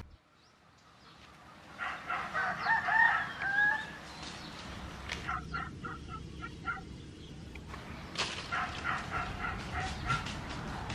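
Animal calls: a long wavering call about two seconds in, then runs of short repeated calls.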